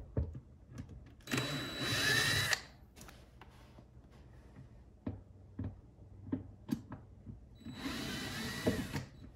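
Cordless drill-driver running in two bursts of about a second each, backing out the center console's screws, with light clicks and knocks in between.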